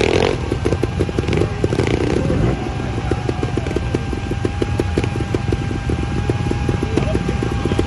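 Trials motorcycle engine idling close by, ticking over with a steady, even beat.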